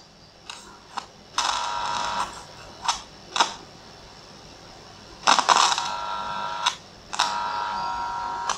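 A small test loudspeaker wired by hand to the output terminals of a Wuzhi Audio ZK-APTX2 amplifier board. It gives sharp clicks as the wire ends touch the terminals, and three faint, buzzy, tone-like stretches of about a second each while contact holds. The faint sound is a sign that the amplifier output is passing signal again, though only weakly.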